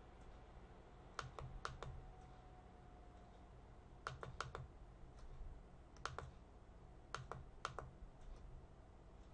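Faint clicking of a computer mouse: four quick runs of two to four clicks each, a second or two apart, over a low steady hum.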